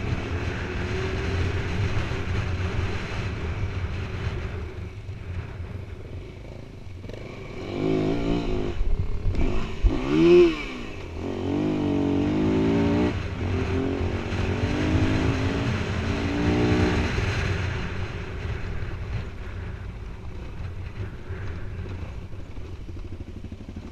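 2017 Yamaha WR250F's single-cylinder four-stroke engine running under way, with wind noise on the helmet camera. The revs rise and fall several times through the middle, loudest with a quick rev up and back down about ten seconds in.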